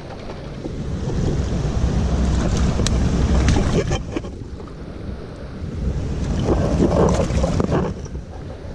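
Wind buffeting the microphone in two swells over the steady rush of a creek, with scattered short clicks.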